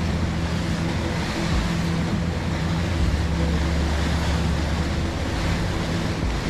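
Steady rush of wind and water as the boat moves across open sea, over the low, even hum of its twin Mercury outboard engines.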